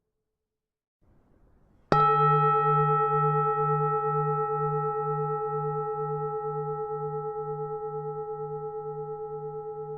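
Vietnamese temple bell (chuông chùa) struck once about two seconds in, then ringing on and slowly fading, its low hum throbbing about twice a second.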